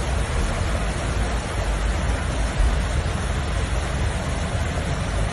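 Steady, loud rush of water, an even noise with a deep rumble underneath, typical of a flash-flooded stream or torrential rain.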